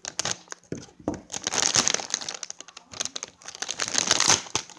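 Plastic chip bag crinkling and rustling as it is cut open and handled, with two louder stretches of crackling, about a second in and again near the end.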